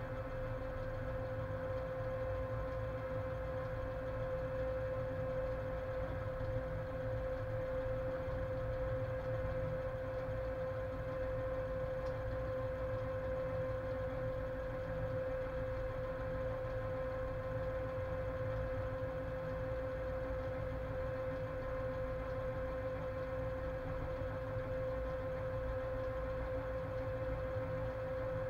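Cab interior of a ČD Cargo class 130 electric locomotive under way hauling a heavy freight train: a steady low running rumble with a constant high-pitched hum over it.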